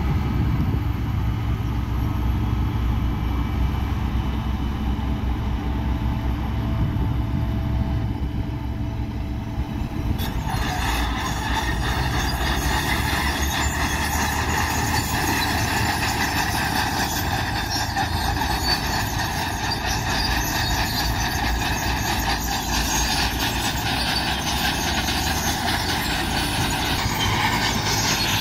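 Diesel engines of heavy road-building machinery (vibratory roller and motor grader) running with a low rumble. About ten seconds in, a loud, harsh high-pitched squealing and scraping sets in and keeps going.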